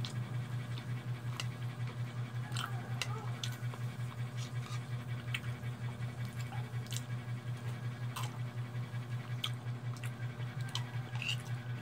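A metal spoon and fork clink lightly against a bowl of noodle soup about ten times, as a man eats. Under them runs a steady low hum that flutters about four times a second.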